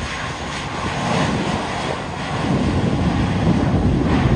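Airbus A320 jet engine noise, a dense rumble that grows louder about halfway through, mixed with wind buffeting the microphone.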